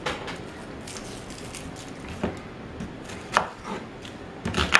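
Knife cutting a red onion on a wooden chopping board: a few sharp knocks of the blade on the board, the loudest near the end, after faint rustling of the onion's skin being peeled.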